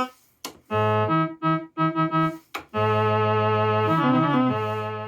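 Casiotone 101 keyboard played through a colour line processor with an opamp and line-driver colour stage, sounding very analog. It plays a few short repeated notes, then a held chord with the lower notes moving underneath, which cuts off at the end.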